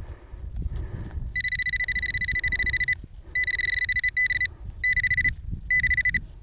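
Metal detector giving a high, rapidly pulsing tone in four bursts, the first the longest, as it passes over a buried target in the dig hole. A low rumble runs underneath.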